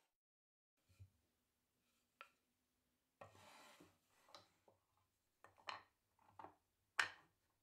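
Plywood parts of a homemade disc-sander jig being handled and fitted: a short sliding rub a little over three seconds in, and scattered light wooden knocks and taps, the sharpest near the end.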